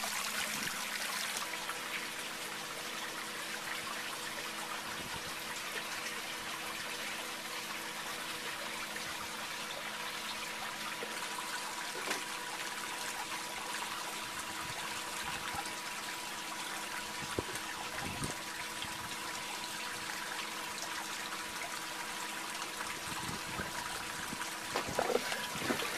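Water rushing and splashing steadily along the hull of a small electric boat under way, with a faint steady hum of a few tones running under it.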